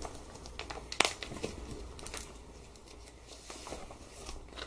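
Clear plastic packaging bag crinkling and rustling as folded t-shirts are handled and slid out of it, with a sharp crackle about a second in.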